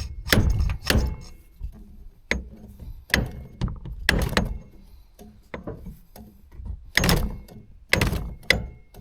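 Irregular series of hard knocks, some with a short metallic ring, from striking the steering shaft joint to force it onto the steering column shaft. About a dozen blows, unevenly spaced.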